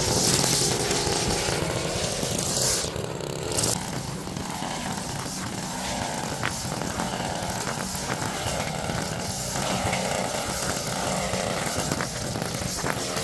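Small gasoline engine of lawn-care equipment running steadily, with a few faint clicks.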